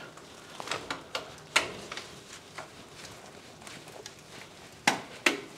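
Torque screwdriver working the terminal screws of a three-phase surge protection device: scattered light ticks and clicks, with two sharper clicks close together near the end, typical of the driver's clutch slipping as it reaches its 3.5 Nm setting.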